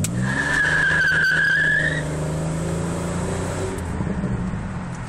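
Full-throttle launch of a 2001 Buick Regal LS with traction control switched off: its 3.8-litre V6 revs up and the front tyres squeal for about two seconds as they spin. The engine then keeps pulling, rising in pitch as the car accelerates.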